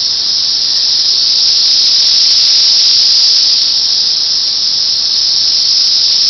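A loud, steady chorus of many cicadas buzzing together, a continuous high-pitched drone that never breaks. It is the males calling to attract mates.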